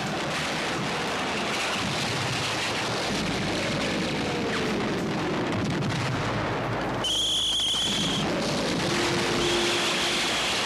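A dense, continuous rumbling roar from a layered war-storm soundscape, with a few slow falling whistles in the middle. About seven seconds in, a high steady ringing tone comes in and sounds again near the end.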